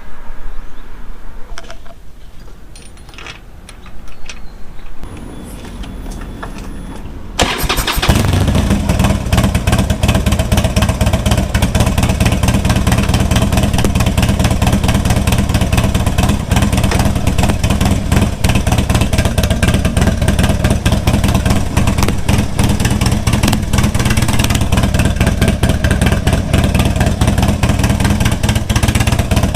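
Harley-Davidson Dyna V-twin engine started about seven seconds in after a few faint clicks, then running steadily at idle.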